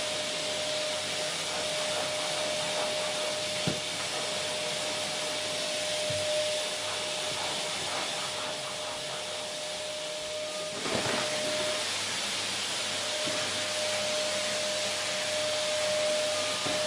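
Vacuum cleaner running steadily: a constant rush of air with a steady motor whine. About two-thirds of the way through there is a short knock and the whine drops out for a second or two before coming back.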